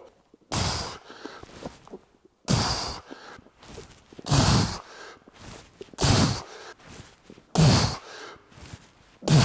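A man's hard breaths out, about six of them a little under two seconds apart, one with each swing of a heavy steel mace behind the neck during a rep set.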